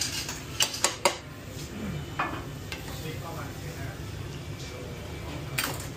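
Busy restaurant kitchen line: metal pans and utensils clank against steel counters and pans, in a quick run of sharp knocks about a second in and again near the end, over a steady low hum.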